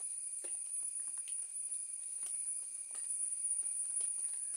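A steady, high-pitched drone of insects in the trees, with faint irregular clicks over it.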